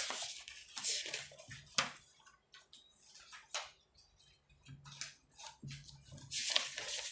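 Sheets of paper in a thick document stack being handled and turned, with rustling swishes about a second in and again near the end. In between come small scratches and ticks of a ballpoint pen writing on the paper.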